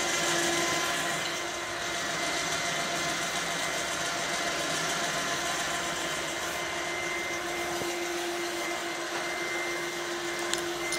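Rhino 3000 lb electric winch running with no load, winding its steel cable in while the cable is held under light hand tension: a steady motor whine.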